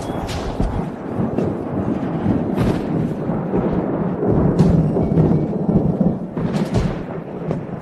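Dramatic film score with booming timpani-like drums, with several sharp hits cutting through it.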